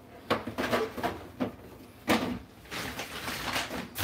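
Household knocks and clatters of things being handled, several in quick succession with the loudest about two seconds in, followed by about a second of rustling.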